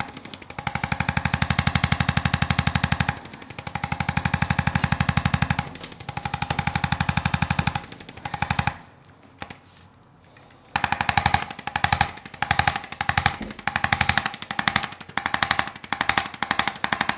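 Handheld percussion 'trigger gun' massager hammering rapidly against the back in runs of a few seconds, then in short bursts toward the end, with a break in the middle.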